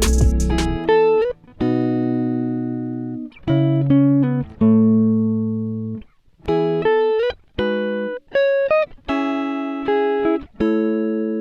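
Background music of plucked guitar notes and chords, each ringing out and fading, in short phrases with brief pauses between them.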